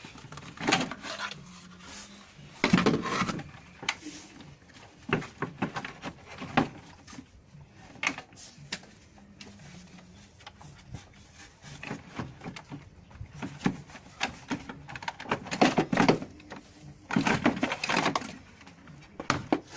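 Plastic clicks, knocks and rubbing from a VW Golf 3's air filter box being unclipped and worked out of the engine bay, with a few louder scraping stretches, the longest near the end.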